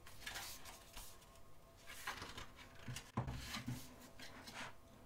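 Pages of a photo book being turned by hand, several soft paper swishes and rustles in a row, with a sharper knock just after three seconds in.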